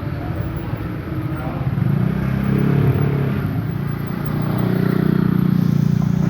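An engine running steadily, picking up speed about two seconds in and again from about four and a half seconds on.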